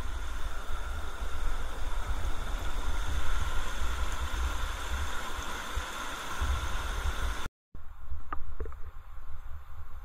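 Mountain stream water rushing and splashing over boulders, a steady full hiss. It cuts off suddenly about three-quarters of the way through, leaving a much quieter background with a few light clicks.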